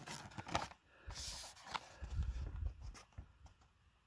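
Carded diecast cars in plastic blister packs rustling and scraping against each other as they are handled and pulled from a case box, in short irregular bursts with a few soft bumps. The handling dies away near the end.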